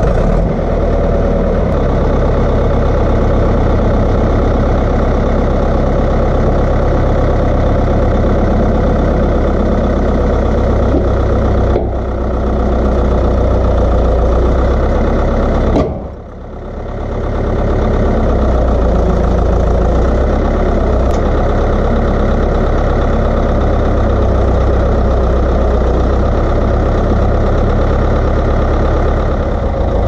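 Caterpillar D4C bulldozer's diesel engine running steadily, with a brief dip in level about sixteen seconds in.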